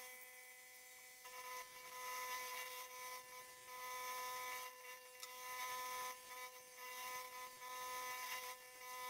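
Milling machine cutting a slot into a Damascus steel guard blank with an end mill: a steady whine from the spindle over the hiss of chips being cut, getting louder from about a second and a half in.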